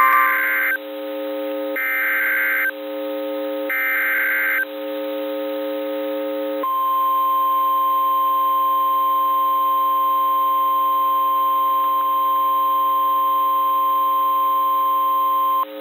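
NOAA Weather Radio Emergency Alert System tones: three short bursts of SAME header data tones, each just under a second with about a second between them, then the 1050 Hz warning alarm tone held steady for about nine seconds, the signal that precedes a severe thunderstorm warning. A faint steady hum of lower tones runs underneath.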